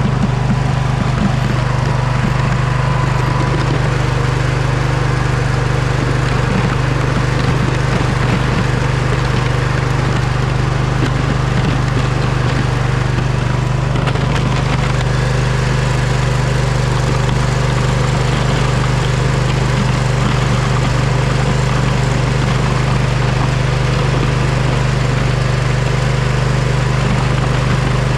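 Poulan riding mower's engine running steadily at a constant speed, a continuous low hum with no change in pitch.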